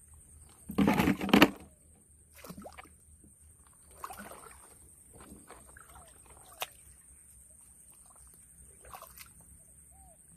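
Shallow paddy water splashing and sloshing as hands reach in and grope for crabs. A loud splash comes about a second in, then a few softer splashes and a sharp click.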